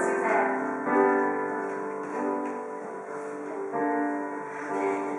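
Piano accompaniment for an improvised musical, playing slow held chords, with a new chord about every one to one and a half seconds.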